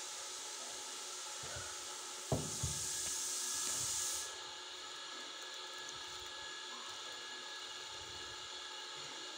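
A paperback book being handled: a sharp knock a little over two seconds in as it is set down on a table, then a lighter knock, over a steady background hiss. A louder hiss joins just after the knocks and stops abruptly about four seconds in.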